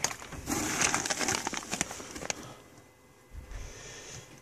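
Crinkling and rustling of packing paper and plastic-bagged parts being handled in a cardboard box, a dense run of small crackles for about two seconds, then it goes quiet.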